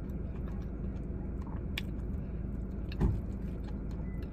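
Steady low hum inside a parked car, with light clicks and scrapes of a fork in a takeout bowl. A dull thump about three seconds in is the loudest sound.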